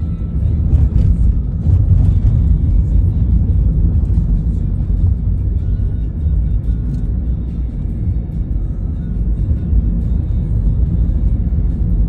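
Steady low rumble of a car driving over a patched road surface, with music playing along.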